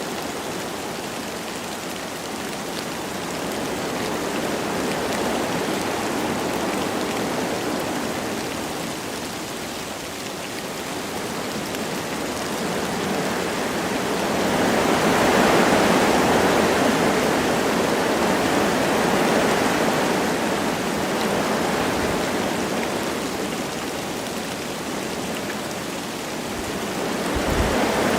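Wind blowing through forest trees with light rain. It swells into a stronger gust about halfway through and again briefly near the end.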